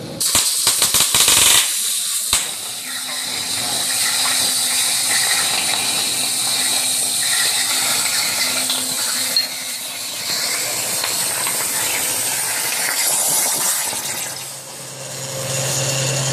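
CNC plasma torch piercing and cutting steel plate: a sudden, crackling burst as the arc pierces and throws sparks, then a steady loud hiss as it cuts, dipping briefly near the end. The cut is still going okay despite the torch riding a little too low.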